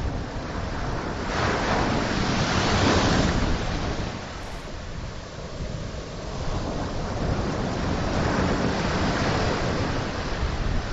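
Surf washing onto a sandy beach, the wash rising and falling twice, with wind rumbling on the microphone.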